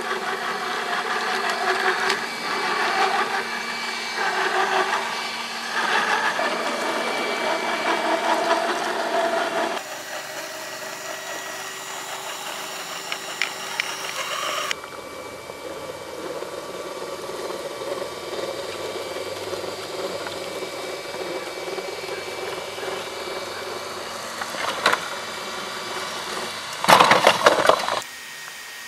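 1:10-scale RC crawler, an RC4WD Trail Finder 2 chassis under a Killerbody LC70 Land Cruiser body, crawling over loose dirt and rocks. The electric motor and gearbox whine rises and falls with the throttle while the tyres crunch on gravel. Near the end comes a louder crunching clatter as the truck rolls onto its side and spills its plastic cargo.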